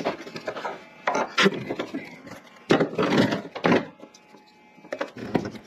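Irregular knocks, clunks and rubbing from a person climbing a step ladder and handling things, coming in several loud bursts with quieter gaps between them.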